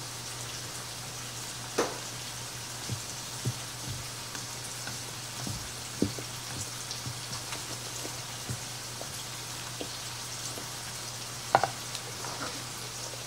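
Wire whisk stirring thick cornbread batter in a ceramic bowl, wet stirring with irregular clinks of the wires against the bowl. A louder clink comes near the end as the whisk is set down in the bowl. A steady low hum and faint hiss run underneath.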